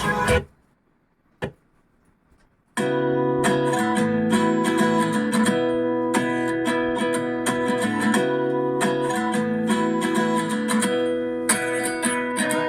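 Music playing from a Zebronics Zeb Sound Feast 500 Bluetooth party speaker: one song cuts off about half a second in, and after about two seconds of near silence broken by a single click, a strummed acoustic guitar intro starts.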